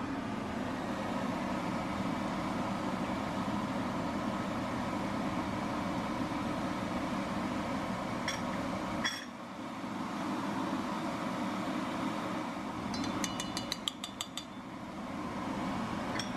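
Steady mechanical whir in a kitchen, with a short run of quick, light clinks about thirteen seconds in.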